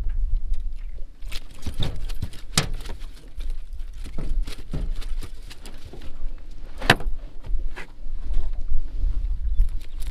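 Irregular knocks and clicks in a small fishing boat, the sharpest about seven seconds in, over a steady low rumble of wind on the microphone.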